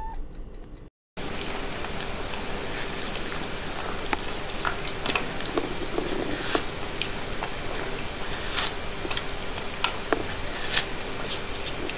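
A cat chewing a slice of watermelon: irregular sharp clicks from its bites and chewing over a steady hiss, starting about a second in.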